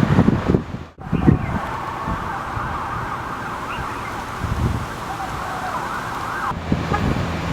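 Siren wailing up and down for about five seconds, starting about a second in and cutting off suddenly, over a low rumble.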